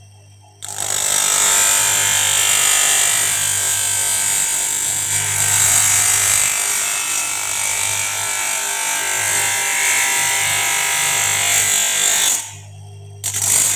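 Thick CR plastic eyeglass lens being cut down by hand against the spinning wheel of a small electric bench motor: a loud, steady grinding hiss over the motor's low hum. It stops for under a second near the end as the lens is lifted off the wheel, then starts again.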